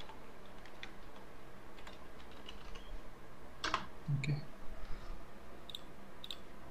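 Computer keyboard typing: scattered keystrokes, with a louder key press about three and a half seconds in, then a couple of light clicks near the end.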